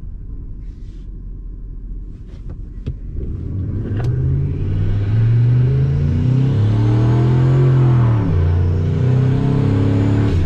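Turbocharged Ford 5.4L Triton V8 in a 2003 F-150 idling low, then pulling away hard about four seconds in. The engine note climbs, drops back at each upshift of the automatic transmission and climbs again, with a faint turbo whistle rising over it, heard from inside the cab.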